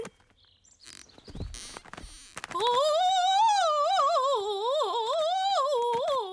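Bluebird's cartoon singing voice in a solo recital: a loud, warbling sung line that wobbles up and down in pitch, starting about two and a half seconds in after a few faint knocks. The others hear it as a noise that will go on a long time.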